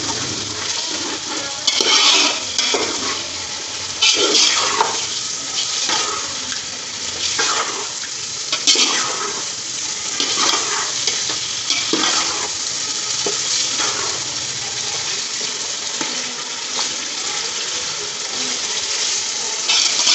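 Chicken pieces frying in ghee and spice masala in an aluminium pot, with a steady sizzle and a metal ladle stirring through them every second or two: the bhuna stage of browning the chicken in its masala.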